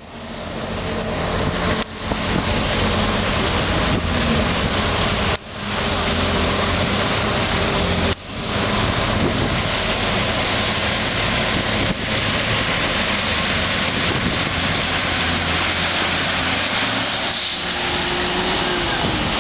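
Semi truck's diesel engine running hard under full load as it drags a weight-transfer sled. The sound drops sharply and picks up again three times in the first eight seconds, as the truck shifts gears, then holds a steady pull.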